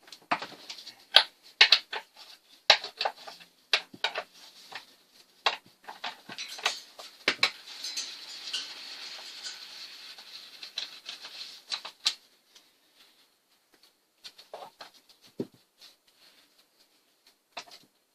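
Sharp metal clicks and clatter as the two bar nuts on a chainsaw's side cover are undone and the cover and bar are worked off, with a stretch of scraping in the middle. The handling goes quieter about twelve seconds in, leaving only a few faint clicks.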